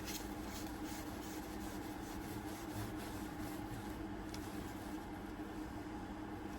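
Steady low hum of background room noise, with faint light clicks and rubbing from small parts being handled during the first few seconds.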